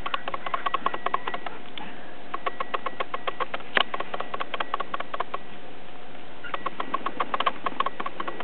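Two chihuahua puppies play-fighting: rapid, irregular bursts of small clicks and scuffles, with a pause of about a second a little past the middle.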